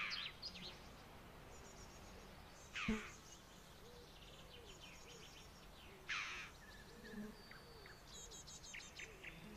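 Quiet outdoor birdsong: two clear calls, each a quick falling note, about three and six seconds in, with faint high, rapid trills and chirps between them.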